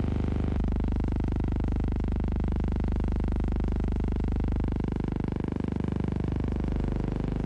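Steady low hum with a buzzing edge, unchanging throughout: a drone on the soundtrack rather than any sound of the scene shown.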